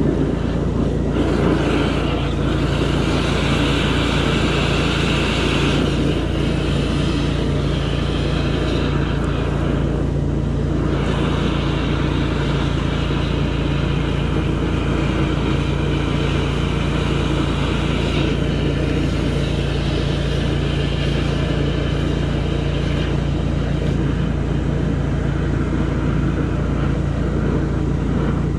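Drain jetter's engine-driven high-pressure pump running steadily with a constant drone while the jetter hose is fed into the sewer pipe to clean the line. A hiss over the drone dips briefly about ten seconds in.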